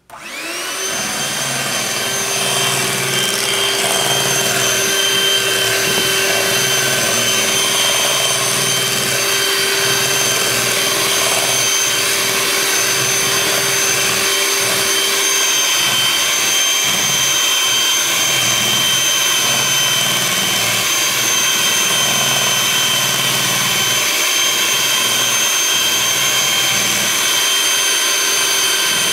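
Electric hand mixer starting up and running at a steady whine, its beaters churning a thin, liquid mix of sugar and oil in a glass bowl as it is beaten toward a creamy consistency. A lower hum in the motor sound drops out about halfway through.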